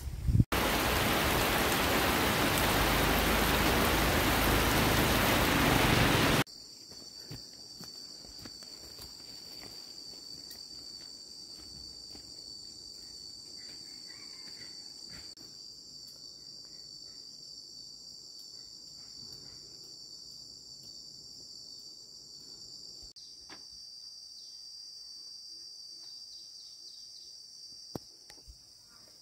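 A loud, steady rushing noise starts abruptly and cuts off after about six seconds. Then a steady, high-pitched chorus of insects carries on.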